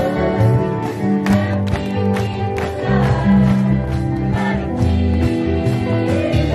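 Live gospel praise song: a group of young singers in unison, backed by a band with a steady drum beat.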